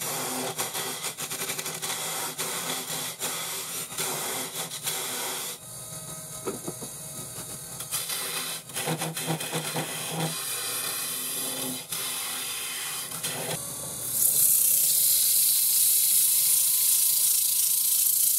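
A turning tool scrapes and cuts into the foot of a spalted maple bowl spinning on a Rikon midi wood lathe. The cutting is rough and continuous for about five seconds, then comes in lighter passes with short pauses. From about fourteen seconds in, sandpaper pressed against the spinning wood makes a loud, steady hiss.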